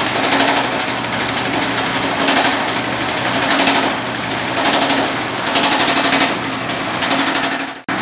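Homemade differential-driven power hammer pounding rapidly on a sheet-steel panel as it is shrunk between the dies. The hammering swells and eases about once a second as the panel is moved under the ram, over a steady hum, and cuts out for an instant near the end.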